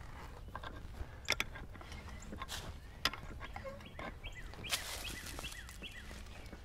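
Sharp clicks and knocks from hands and tools working on an irrigation backflow preventer while its first check valve is opened, a few louder clicks standing out. Birds chirp a run of short notes in the background.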